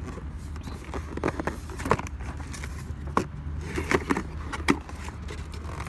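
A cardboard gift box being handled and opened by hand: scattered taps, scrapes and clicks of card, the sharpest about two seconds in and near the end, over a steady low rumble.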